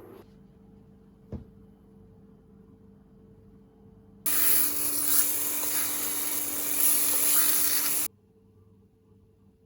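A kitchen tap turned on full, water rushing into the sink for about four seconds, then shut off abruptly. A short knock sounds a few seconds before it.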